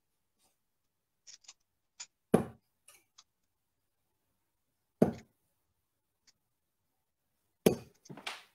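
Three darts striking a bristle dartboard one at a time, each a sharp strike, about two and a half seconds apart, with faint small clicks in between.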